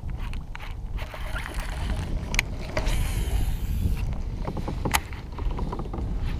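Sounds of fishing from a kayak: a steady low rumble with scattered clicks and knocks of gear being handled, sharpest twice (about two and a half and five seconds in), and a short hiss about three seconds in.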